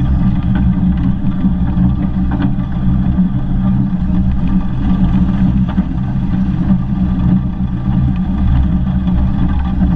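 Steady low rumble from the cab side of the 15-inch-gauge steam locomotive 'Northern Rock', with no clear exhaust beat and a few faint clicks.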